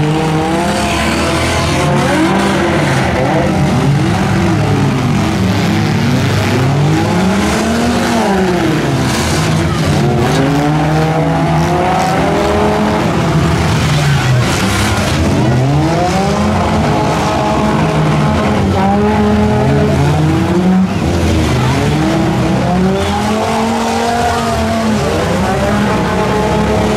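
Several demolition derby cars' engines revving hard at once, their pitches repeatedly rising and falling over one another.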